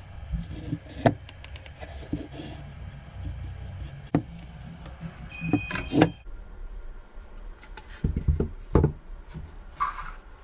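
Wooden pieces knocking and rubbing as they are handled, with a handful of separate knocks and a short high-pitched squeak just before six seconds in.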